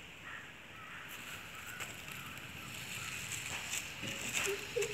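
A thin stick scraping and rustling over dry leaves and dusty concrete, with light scratchy ticks that come more often in the last second or so.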